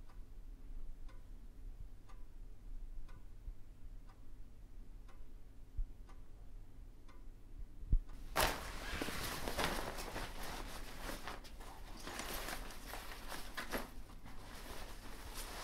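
A clock ticking faintly once a second. About eight seconds in comes a thump, then the rustle and handling of a nylon hiking rucksack, with fabric scraping and small clicks.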